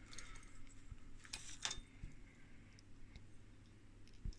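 Faint light clicks and taps from a small metal tuning-motor and gear assembly being handled and turned over in the hand, over a steady low hum.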